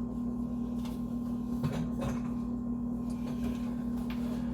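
Steady low electrical hum, with a few faint knocks and rustles from handling as a phone or camera is moved higher and repositioned.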